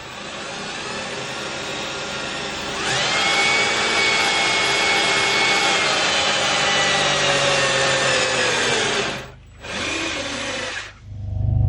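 A power tool's motor running steadily with a whining pitch. It gets louder and changes pitch about three seconds in, stops about nine seconds in, then runs briefly once more before cutting off.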